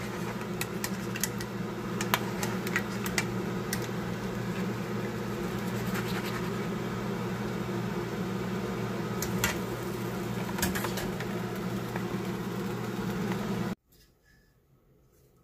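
A steady motor hum, with scattered sharp clicks of a metal mesh skimmer knocking against a frying pan and a plastic colander as boiled chicken feet are scooped out. The sound cuts off abruptly near the end, leaving near silence.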